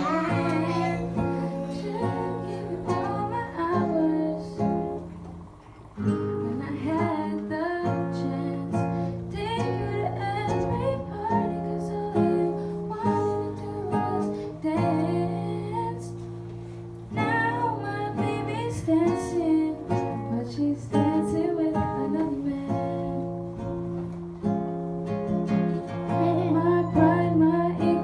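A woman singing while playing chords on an acoustic guitar. The music dips briefly about six seconds in and again about seventeen seconds in.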